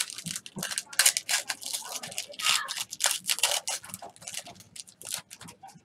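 Trading cards and a foil card-pack wrapper being handled: a quick, irregular run of crinkles, rustles and clicks.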